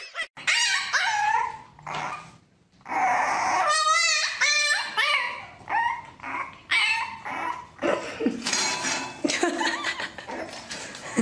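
A dog barking and whining in a series of short, pitched calls, one with a quick wavering pitch about four seconds in.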